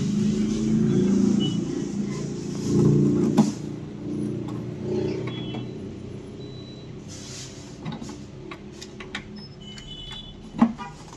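HP Smart Tank 530 inkjet printer's internal motors whirring and clunking as it initializes after its print-head cartridges are installed. The whirr is loudest for the first few seconds, then dies down, with a few sharp clicks and a louder click near the end.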